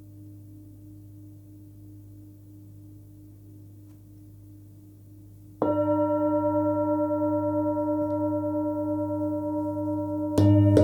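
A 27 cm hammered Full Moon singing bowl rings low and steady with its deep fundamental near 101 Hz. It is struck about halfway through and again, louder, near the end; each strike sets off a fresh ring with many overtones that slowly fades.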